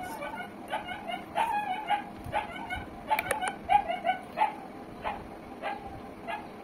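A dog barking in a string of short, high calls, about two a second.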